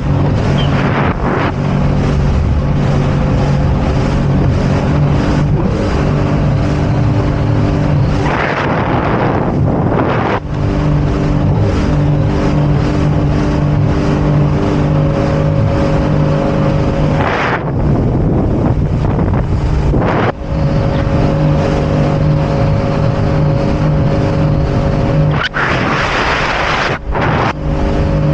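Jet ski engine running at a steady speed, with wind on the microphone. Several times the engine note is briefly drowned by a rush of wind and spray noise.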